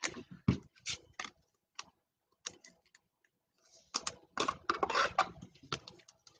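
Paper football trading cards being thumbed through and set down on a tabletop: scattered clicks and snaps of card edges, with a busier flurry about four seconds in.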